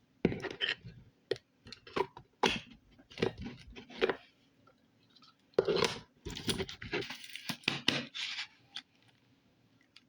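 Slime being squeezed and worked by hand: irregular bursts of squishing, with a break of about a second near the middle.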